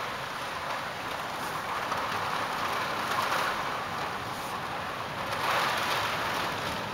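Heavy storm rain, a steady hiss that swells about three seconds in and again, loudest, about five and a half seconds in.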